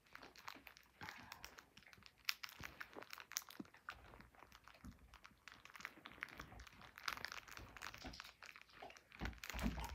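Faint, irregular crinkling and crackling of candy wrappers being handled close to the microphone.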